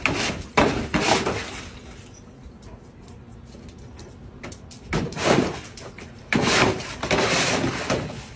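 Dog splashing at the water in a small plastic kiddie pool, water sloshing and slapping, in bursts: one in the first second, then again about five seconds in and from about six to eight seconds, with a quieter gap between.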